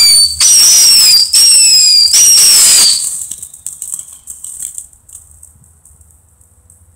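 Whistling "Killer Bee" firework shrieking in four loud bursts, each under a second long with a slightly falling pitch over a hiss, in the first three seconds, then dying away to faint crackles.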